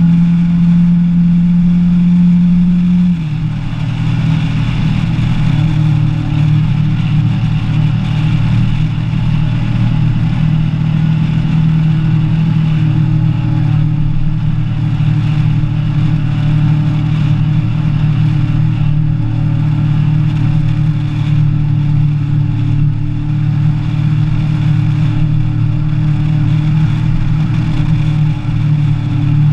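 Kawasaki ER-6n's 649 cc parallel-twin engine running under way, as heard from the motorcycle. Its note drops in pitch about three seconds in, then holds steady.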